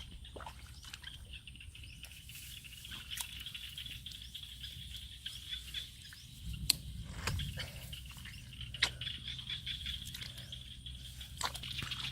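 Scattered small splashes, drips and clicks of water being disturbed by hand, over a steady high hum, with a low rumbling stir of water about halfway through.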